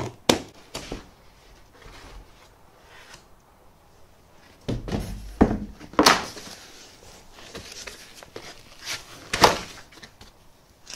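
Cardboard packaging of a 3D printer being opened and handled: a sharp knock near the start, then several short scraping, rustling swishes.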